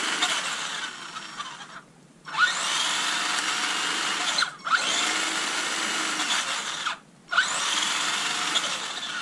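HBX Protector RC buggy's electric motor and drivetrain whirring as the throttle is blipped with the wheels spinning in the air: four runs broken by three short pauses, each run starting with a rising whine. It is a test run after a spur gear replacement, with the new gear meshing well.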